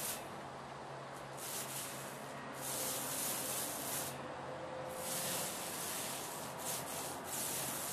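Paint roller on an extension pole rolling wet paint over a drywall wall, back-rolling the fresh coat: a soft hiss that swells and fades with each of several strokes, each a second or so long.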